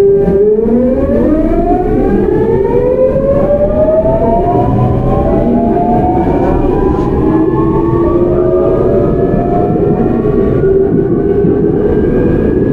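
GEC Alsthom GTO-VVVF traction inverter of a Seoul Metro 8000 series train as it accelerates. A steady whine gives way, just after the start, to several tones rising together in pitch, siren-like, over the rumble of wheels on track.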